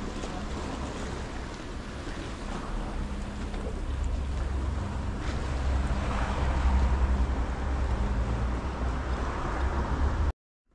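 Lakeshore ambience: wind buffeting the microphone over lapping water, with a low engine rumble that swells through the middle. It cuts off suddenly near the end.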